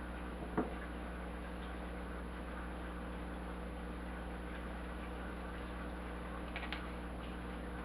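Quiet room tone with a steady low electrical hum. A single sharp click comes about half a second in, and faint light taps near the end come from hands handling a sandwich on a paper plate.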